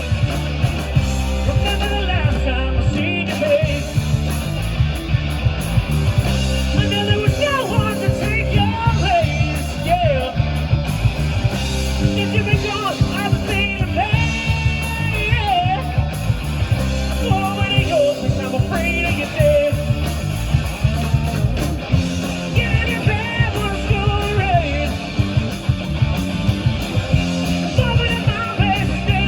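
Rock band playing a hard-rock song, with a lead voice singing over the band and a steady, evenly spaced beat.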